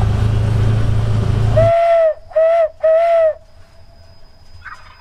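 Side-by-side UTV driving, its engine and rattle loud, cut off suddenly about a second and a half in. Then three short hoots at a steady pitch on an owl locator call, blown to make a turkey shock-gobble.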